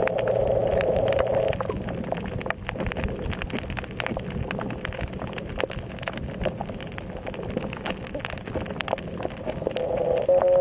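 Underwater coral-reef crackle: a dense, irregular patter of snapping-shrimp clicks over a steady hiss. A louder, rough sound fills the first second and a half, then cuts off.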